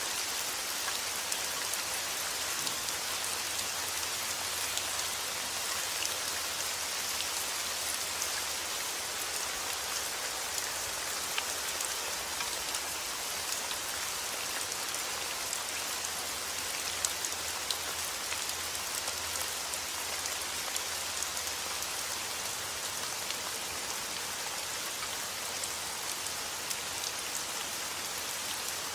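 Heavy rain falling steadily outdoors: a dense, even hiss of rain with many small, sharp drop ticks.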